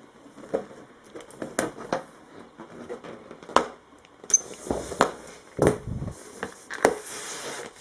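Hands handling and opening a surprise balloon: scattered small clicks, rubbing and crinkling sounds.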